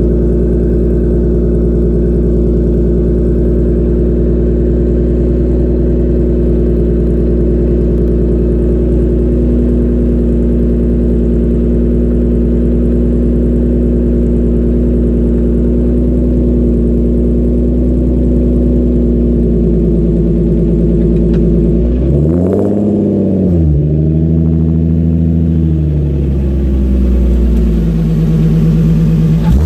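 Car exhaust with the engine idling steadily, then revved in a few throttle blips over the last several seconds, the pitch rising and falling with each one.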